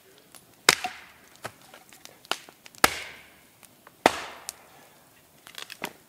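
Wood being chopped: three hard, ringing blows a second or two apart, with lighter knocks between them and a quick run of small knocks near the end.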